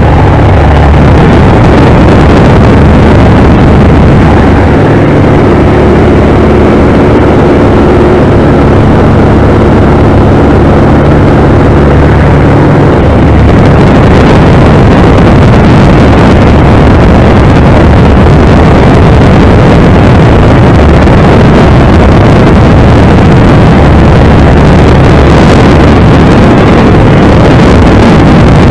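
Gerle-2 open-cockpit light aircraft in flight: its propeller engine runs steadily under a heavy rush of wind across the open cockpit. A steady engine hum stands out from about five to thirteen seconds in.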